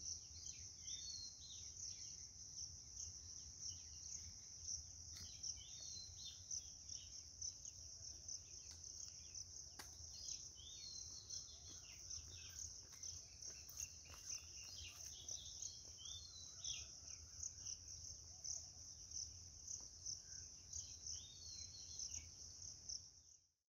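Ambient insects trilling steadily at a high pitch, with scattered short, falling bird chirps and a low hum underneath. The sound fades out at the very end.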